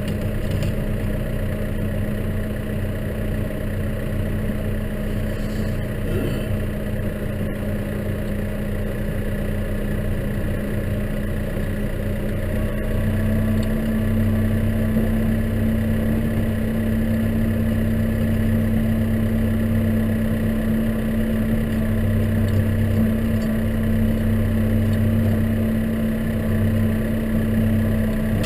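Case tractor engine running steadily under way, a little louder from about 13 seconds in.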